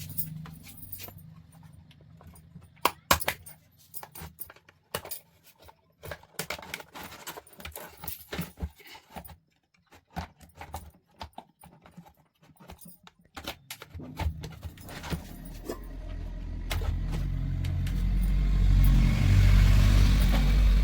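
Metal fan parts being handled: a run of light metallic clicks, rattles and knocks with short pauses. In the last several seconds a low hum with a little hiss swells up and grows loud.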